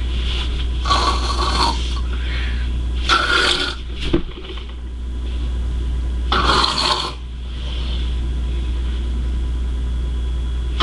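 A child snoring like an old man: three snores, each under a second long and a few seconds apart, over a steady low hum.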